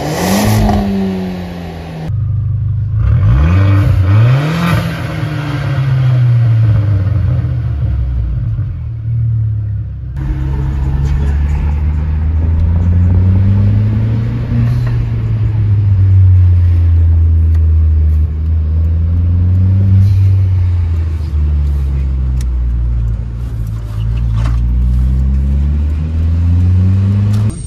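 VW Passat B5 1.8T turbocharged four-cylinder engine revving, first at the tailpipe with the stock muffler in a few short blips, then from inside the cabin while driving, the pitch rising through each gear and dropping at the shifts.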